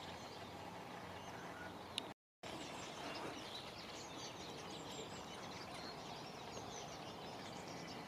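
Faint birdsong, thin high chirps, over a steady outdoor hiss. The sound cuts out completely for a moment about two seconds in.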